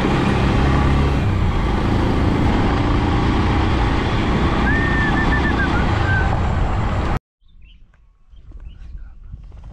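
Bajaj Pulsar motorcycle's single-cylinder engine running at a steady road speed under heavy wind rush, with a few short bird chirps about five seconds in. About seven seconds in, the ride sound cuts off abruptly to much quieter outdoor ambience with faint scattered sounds.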